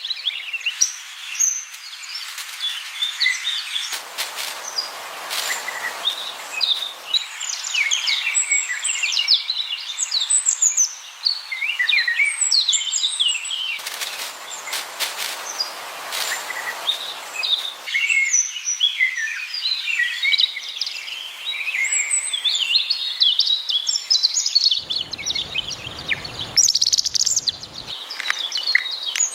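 Many small birds chirping and calling over one another in quick, high, short calls throughout, over a soft hiss that swells and fades a few times; a low rumble comes in briefly near the end.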